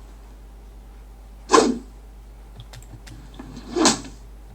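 Two short whooshes of a stick swung fast through the air, played back as a recorded swing sound effect for fight scenes, about a second and a half in and again near the end.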